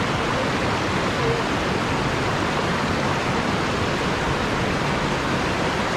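Water rushing steadily over boulders in a shallow river below a weir's sluice gates: a constant, even rush of whitewater.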